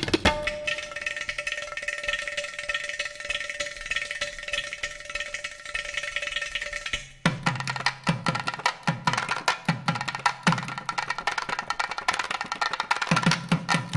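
Background music with percussion. About seven seconds in, it changes abruptly to a passage with regular drum beats.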